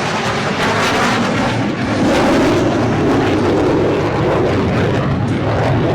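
Aircraft engine noise from a plane flying over, a steady rushing rumble that peaks about two seconds in.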